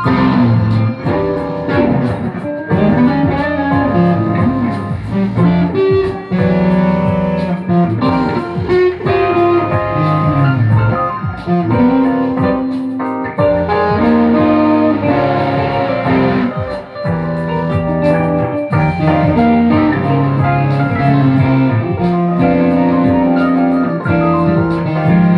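Guitar music with bending, plucked notes over a steady low line.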